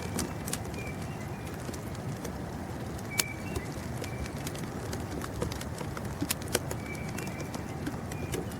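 Short, high bird chirps repeating every couple of seconds over a steady hiss, with scattered sharp ticks.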